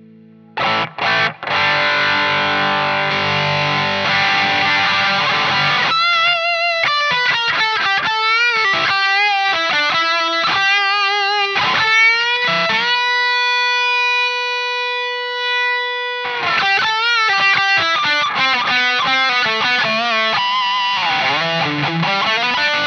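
Electric guitar played through the Naughty Li'l Bitch amp and an overdrive pedal, with a distorted tone. Two short chord stabs lead into a held chord, then a lead line of bent and vibrato notes, one long sustained note about halfway, and more fast lead phrases.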